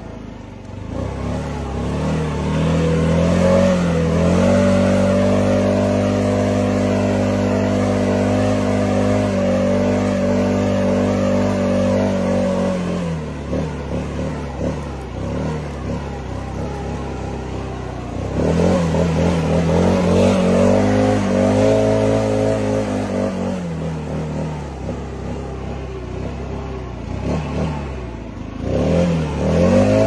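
Handheld leaf blower running, its motor and fan speeding up to a steady high pitch with a rush of air, dropping back about 13 seconds in, speeding up again, and easing off once more before a last spin-up near the end.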